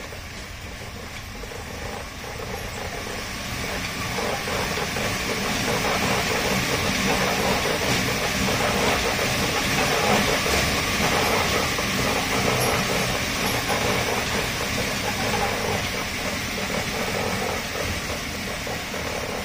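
Drum-type dog treadmill turning under a running dog: a steady rolling rumble with hiss from the spinning drum, growing louder over the first several seconds and easing a little near the end.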